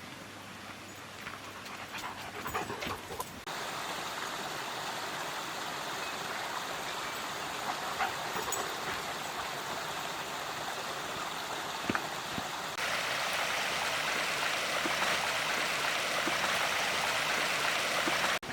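Steady rush of flowing stream water, which jumps abruptly louder twice, about a third of the way in and again past the middle, with scattered light clicks over it.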